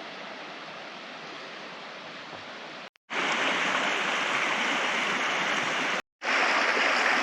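Steady rush of fast-flowing river water, breaking off briefly about three and six seconds in and coming back louder each time.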